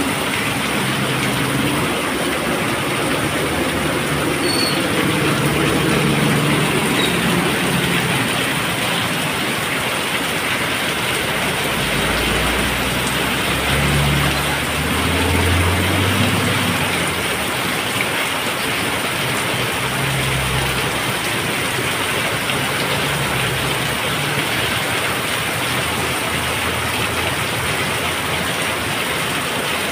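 Heavy downpour: a steady, loud hiss of rain. Through the middle a truck's engine rumbles low as it manoeuvres in the street.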